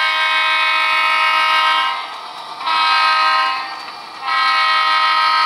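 HO-scale Santa Fe diesel locomotive's sound-decoder horn sounding a multi-note chord through its small onboard speaker: a long blast ends about two seconds in, a short blast follows, and another long blast starts a little past four seconds.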